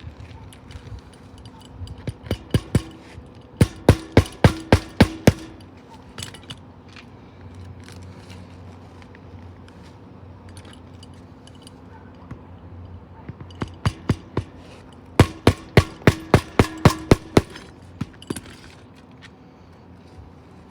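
Hammer driving roofing nails through a replacement asphalt shingle. There are two runs of strikes, each starting with a few light taps and building to quick, hard blows about four a second; the second run comes about eleven seconds after the first.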